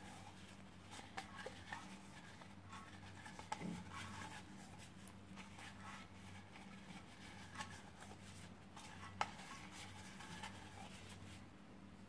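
Quiet kitchen with a faint steady low hum and a few soft clicks and light scrapes of hands and utensils as spices are added to raw chicken in a nonstick pan, one sharper tick about nine seconds in.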